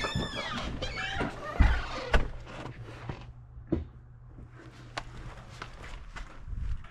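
Scattered sharp knocks and clicks with some rustling, a few seconds apart, and a brief faint wavering sound near the start.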